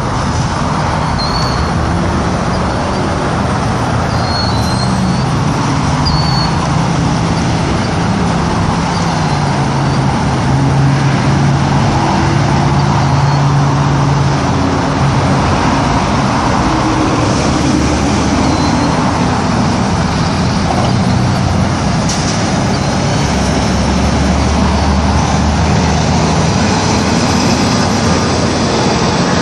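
Heavy motor vehicle engine running close by: a steady, loud rumble with a constant broad noise and low engine tones that drift up and down in pitch.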